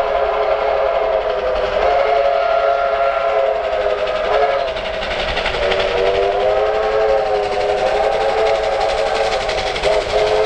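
Steam locomotive whistle sounding a long, sustained chord of several notes, with a steady rush of the working train beneath it. The whistle drops out briefly about five seconds in, resumes, and breaks into short blasts near the end.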